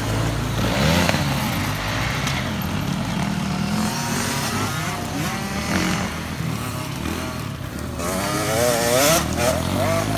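Several youth motocross bikes riding a dirt track, their engines revving up and falling back as they ride. A rev climbs and drops loudest near the end.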